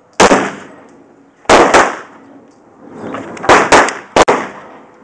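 Six gunshots in about four and a half seconds: a single shot, then two close pairs, then one more, each trailing off in a short echo.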